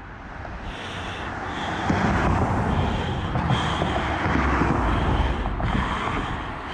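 Nylon rope hauled up hand over hand over a concrete ledge for a magnet fishing magnet, with a scratchy rasp about once a second as each length of rope is pulled. A heavy low rumble swells over the first two seconds and stays loud under it.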